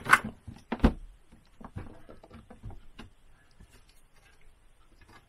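Handling noise as the UV setup is covered over: two sharp knocks in the first second, then faint scattered taps and rustles.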